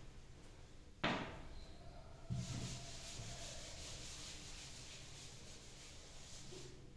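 A duster rubbing chalk off a blackboard: a sharp knock about a second in and a duller one just after two seconds, then several seconds of steady scrubbing.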